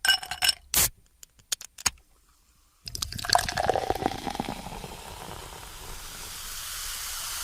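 Soft-drink can handled with ringing metallic clinks and a sharp click about a second in, likely the tab popping. From about three seconds in, soda pours out with splashing that turns into a fizzing hiss, slowly building.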